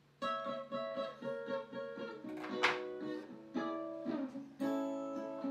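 Music on a plucked string instrument, picking out a melody of separate notes.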